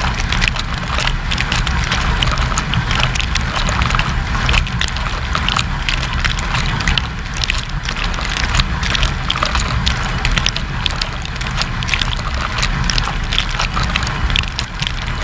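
Water from the spray arms of an AEG dishwasher spraying and splashing on the inside of the machine during a 50 °C wash, heard from inside the running dishwasher. A dense spatter of drops hits close by, over a steady low rumble.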